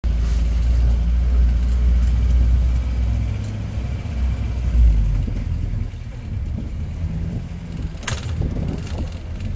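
A vehicle driving along a street: steady low engine and road rumble, heavier for the first five seconds and lighter after. A brief sharp noise comes about 8 seconds in.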